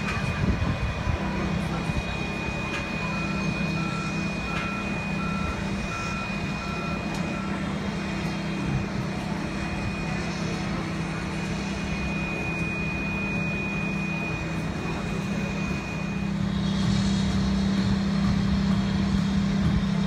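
Heavy construction machinery: a steady low engine rumble, with a reversing alarm beeping about twice a second for about five seconds, starting about three seconds in. A thin steady high tone runs underneath and stops a few seconds before the end.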